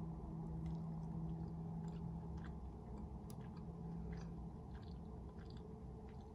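A person chewing a bite of sausage, with faint, scattered mouth clicks. A low, steady hum runs under it and fades out about two-thirds of the way through.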